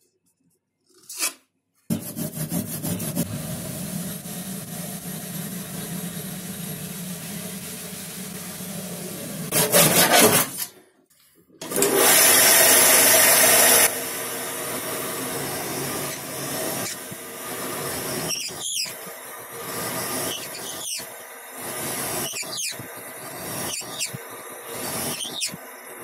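A power drill boring into a solid wooden block. After a nearly silent start with one short tap, it runs continuously, with a loud high-pitched stretch near the middle. In the second half the bit squeals in repeated rising and falling glides as it cuts into the wood.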